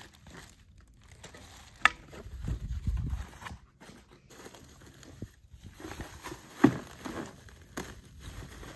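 Plastic wrapping and cardboard packing rustling and crinkling as parts are handled in and out of a box, with two sharp clicks, the first about two seconds in and the second, loudest, past the middle.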